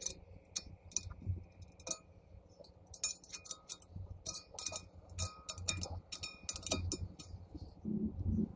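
Spoke nipples on an e-bike hub-motor wheel being turned with a spoke wrench while truing: a string of sharp metallic clicks and ticks, some followed by a short ringing ping from the tensioned spokes. The clicks come in irregular clusters, thickest from about three seconds in.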